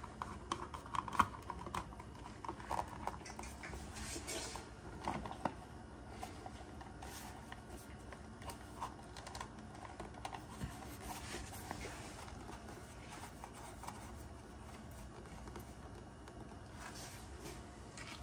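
Irregular light clicks and scrapes of a well pump pressure switch's plastic cover being handled and fitted onto the switch.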